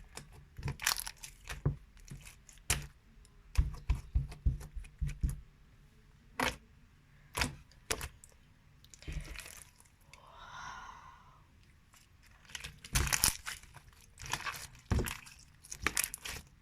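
Jiggly slime crackling and clicking as it is squeezed and pulled in the hands: irregular sharp snaps in clusters, with a quieter stretch in the middle.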